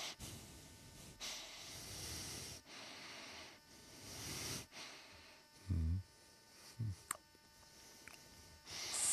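A person breathing heavily in long, noisy breaths, with a short low grunt about six seconds in.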